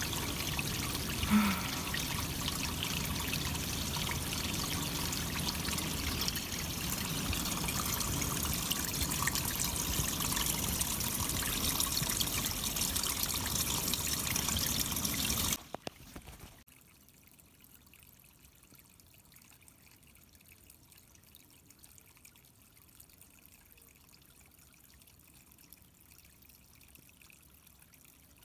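Small rocky forest brook babbling, a steady rush of flowing water. A little past halfway it cuts off abruptly to near silence.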